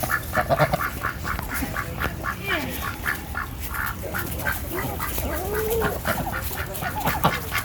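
Ducks quacking in a fast, even chatter of short calls, about six a second, as they crowd in and squabble over feed, with a few lower calls that bend in pitch mixed in.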